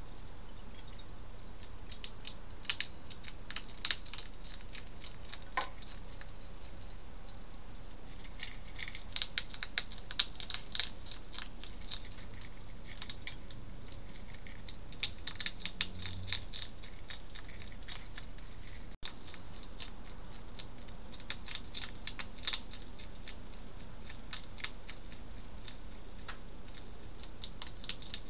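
A hedgehog eating from a dish, crunching and chomping its food in bursts of sharp clicks with short pauses between, over a steady background hiss.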